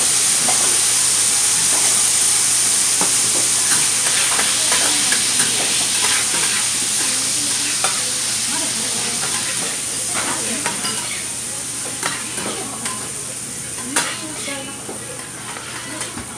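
Food sizzling loudly on a hot steel teppan griddle, the sizzle slowly dying down, with scattered sharp clicks and scrapes of metal spatulas on the plate, the loudest about fourteen seconds in.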